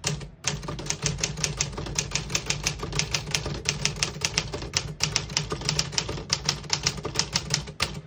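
1957 Remington Quiet-Riter manual portable typewriter being typed on at a steady pace: a quick, uneven run of type-bar strikes, several a second, starting about half a second in. The keys strike cleanly, with none skipping or sticking.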